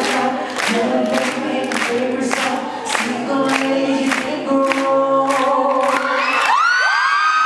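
A group of male voices singing a cappella in harmony into microphones, over a steady beat of sharp hits about twice a second. About six and a half seconds in, the singing ends and an audience breaks into high-pitched screaming.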